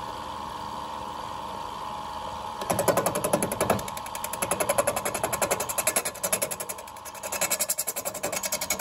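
Wood lathe running with a steady whine as it spins a bamboo tube. About three seconds in, a hand-held chisel bites into the spinning bamboo and adds a fast, even rattling chatter of the cut, which swells and eases as the tool works.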